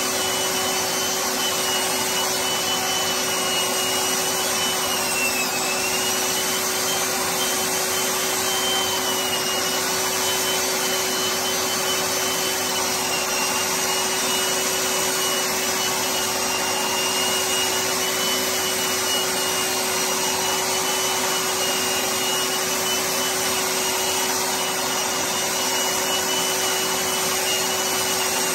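Electric drywall sander running steadily while sanding down dried plaster, a constant motor noise with a high whine that wavers slightly in pitch.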